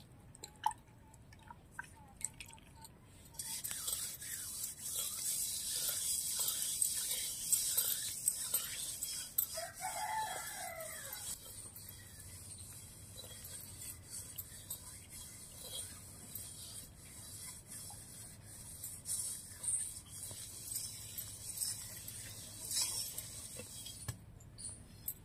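A rooster crows once, about ten seconds in. Under it is a steady high hiss that starts abruptly a few seconds in, with soft intermittent scrapes and dabs of hands smearing wet mud onto a cooking pot.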